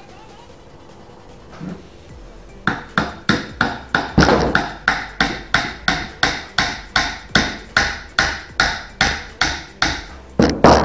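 Claw hammer striking a wooden dowel in a painted wooden frame joint, driving it through. A quick, even run of blows, about three a second, starts a little under three seconds in and lasts almost to the end.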